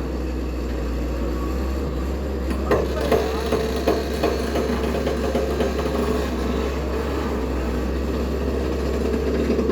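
Heavy diesel engine running steadily under work, with a few short knocks about three to four seconds in.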